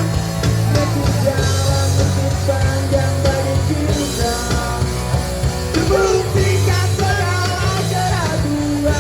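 Pop-punk band playing live: electric guitars, bass and drum kit at full volume, with a singer's voice over the top.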